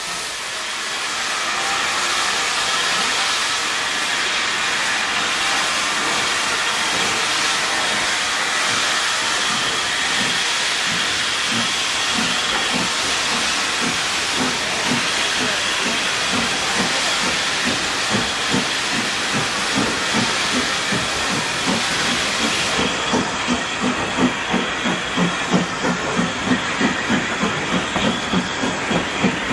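Steam tank locomotive Gothenburg letting off a loud, steady hiss of steam, then moving off with a regular beat that grows stronger, about three beats a second near the end.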